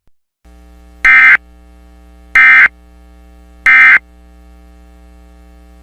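Three short bursts of Emergency Alert System SAME digital data tones, the end-of-message signal, sent about 1.3 s apart. Under them a steady electrical hum sets in about half a second in.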